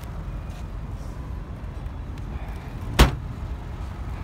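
The boot lid of a 2018 Toyota Camry slammed shut once, a single sharp thud about three seconds in, over a steady low background rumble.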